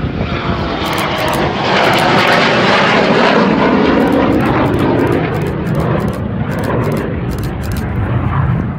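Eurofighter Typhoon's twin EJ200 turbofan engines: a loud, steady jet roar as the fighter flies past in a display, easing slightly near the end.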